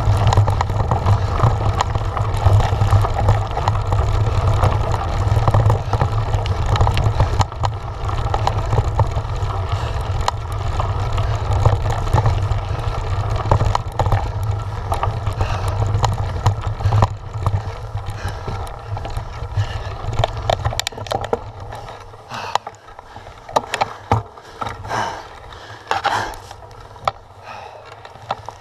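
Giant Trance mountain bike riding fast over a loose stony track: a steady low rumble of the tyres and dense rattling and clatter of the bike and its mounted camera. About 21 seconds in it rolls onto grass and the noise drops much lower, leaving a few scattered knocks.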